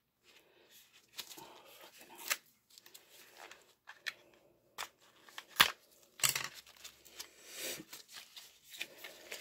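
A small cardboard lip-pencil box being handled and opened: rustling and scraping of packaging, with a few sharp clicks, the loudest a little past halfway.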